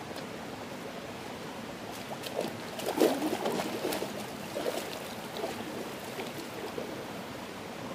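Water sloshing and splashing as a person wades into a shallow warm-spring pool, loudest about three seconds in, over a steady hiss.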